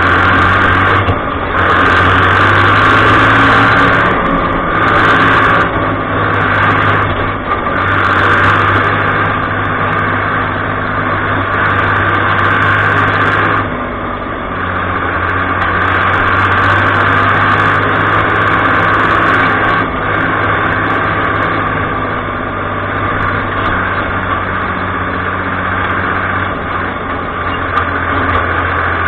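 Fiat 55-56 tractor's diesel engine running steadily, heard from the driver's seat, with small rises and falls in loudness as it drives through the field.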